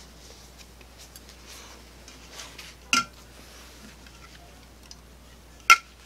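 Aluminium drink cans being handled, with two sharp metallic clinks that ring briefly: one about three seconds in and a louder one near the end. Faint handling rustles come between them.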